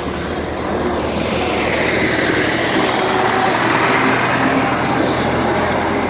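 A motor vehicle's engine running steadily, growing louder through the middle and easing slightly toward the end.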